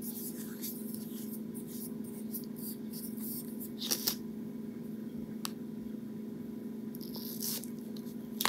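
Faint clicks and scrapes of a plastic mascara tube being twisted open and its wand drawn out, over a steady low hum.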